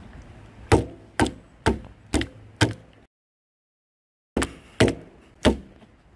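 A soft toy being whacked repeatedly onto a wooden picnic table top, hard knocks on the planks. Five come at about two a second, then a short gap of dead silence, then three more.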